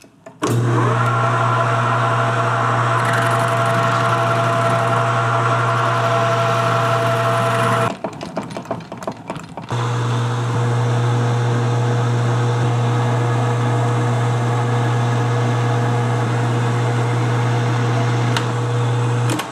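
Metal lathe running with the part spinning in a four-jaw chuck while a single-point tool cuts a thread, a steady machine drone with a strong low hum. The drone breaks off for under two seconds about eight seconds in, then runs steady again.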